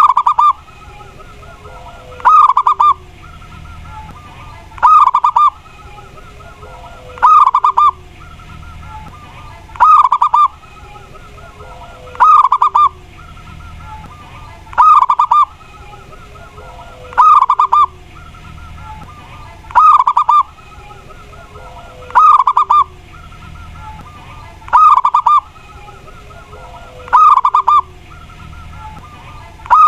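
Perkutut (zebra dove) of the Mataram type singing its cooing song: a loud, warbling phrase about half a second long, repeated evenly about every two and a half seconds, each followed by a fainter, lower falling note. This is the kind of song played as a lure (pancingan) to draw in wild perkutut.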